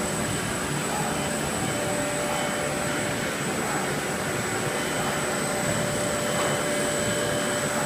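Automatic plastic-bag cutting machine running, a steady mechanical drone with a constant high whine and a lower hum, even in level throughout.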